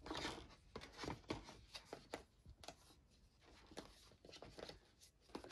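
Faint, irregular taps, clicks and scrapes of hands handling a cardboard box and its packed parts, as a magnetic phone ring is set back into the box's cardboard insert.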